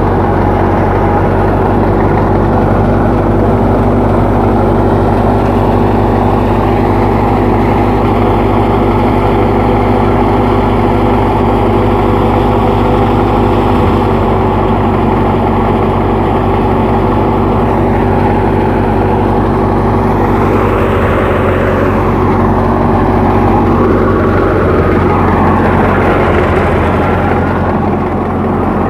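Massey Ferguson 385 tractor's diesel engine running at a steady speed with an even hum. From about two-thirds of the way through, higher wavering tones rise and fall over it.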